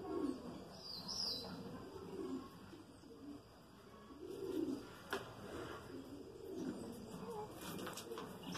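Cage birds calling: a run of soft, low calls repeating roughly once a second, with a short high chirp about a second in and a sharp click a little past the middle.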